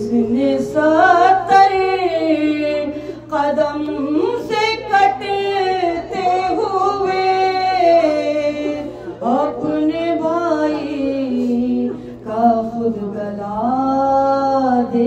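Solo voice singing a Shia salam in soz style: a slow, melismatic melody of long held notes that waver and slide between pitches.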